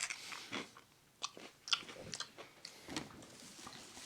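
Someone chewing and biting into chicken wings close to the microphone: irregular small clicks and crunches of mouth and food.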